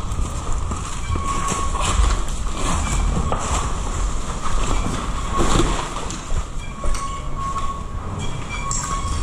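Steady rumbling handling noise with many small clicks and knocks from a body-worn action camera and gear moving, as a player walks over concrete rubble.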